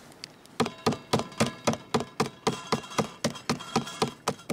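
Back of a kitchen knife repeatedly striking a wrapped white chocolate bar on a wooden cutting board to crush it: a rapid, even run of knocks, about four a second, starting about half a second in.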